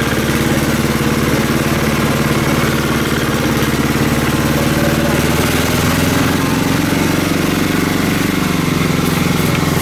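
Small tractor engine pulling a loaded trailer through mud, running steadily under load; its pitch rises a little in the second half.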